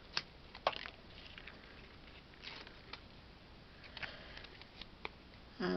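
Faint handling sounds of card and foam tape: a few scattered light ticks and rustles as fingers work double-sided foam tape strips on the back of a die-cut cardstock piece.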